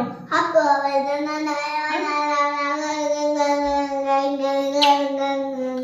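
A child's voice holding one long sung note, nearly level in pitch, for about five seconds.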